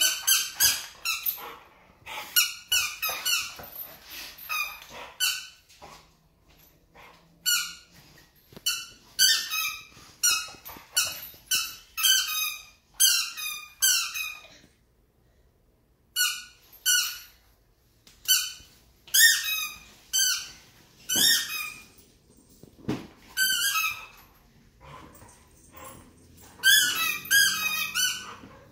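A dog chomping a squeaky ball in its mouth: quick runs of short, high squeaks, several a second, with pauses between the runs.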